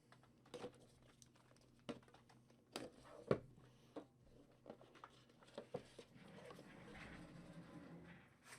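Trading cards and their packaging handled on a table: scattered light taps and clicks, one sharper click about three seconds in, and a soft rustle near the end.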